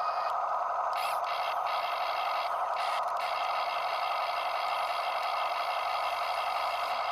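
Small electric motors and plastic gearboxes of a Huina 1573 RC excavator whirring steadily, with a high whine above them that cuts out briefly a few times in the first three seconds and then runs steadily.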